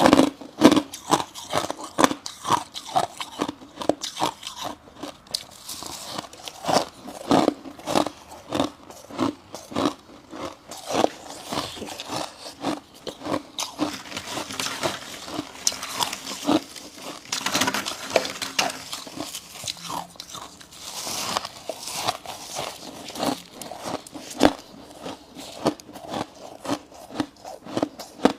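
A person biting and chewing refrozen freezer frost close to the microphone: a steady run of crisp, icy crunches, about one or two a second.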